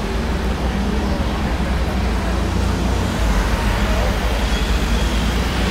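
Vehicle engines and road noise at a checkpoint, with a Volkswagen Transporter police van driving past; a steady low rumble throughout.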